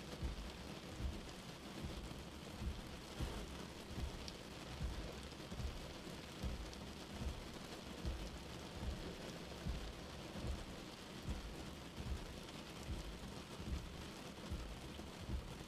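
Steady rain on a car windscreen with the wipers sweeping. Each stroke gives a low thump, a little more often than once a second, over the even hiss of the rain.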